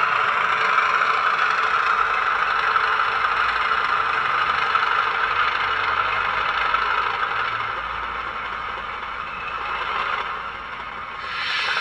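Hornby Class 31 OO gauge model locomotive running, its factory-fitted DCC sound decoder playing the diesel engine sound through the model's small speaker, with a rattling clatter. The sound eases off somewhat near the end and then builds again.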